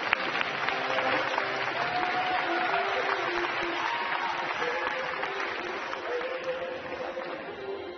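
Arena crowd applauding steadily, with music faintly underneath from the rink's sound system; the applause thins out near the end.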